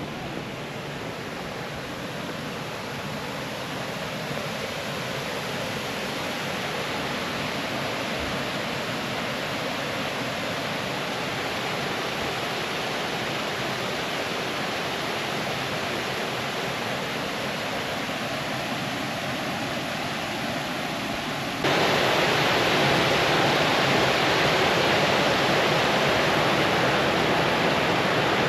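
Steady rushing of flowing water, growing gradually louder, then jumping up abruptly about three-quarters of the way through.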